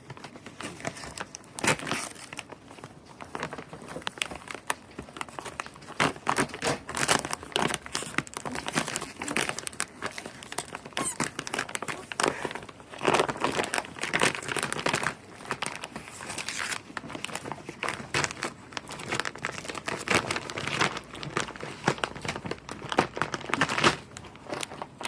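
Gift wrapping paper crinkling, crumpling and tearing as a present is torn open, in many irregular rustles and rips.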